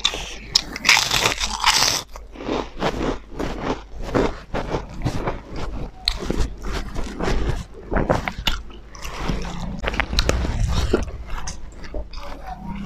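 Close-up eating sounds: crisp fried food crunched between the teeth and mouthfuls chewed, with a loud crackly crunch about a second in and many smaller bites and chews after.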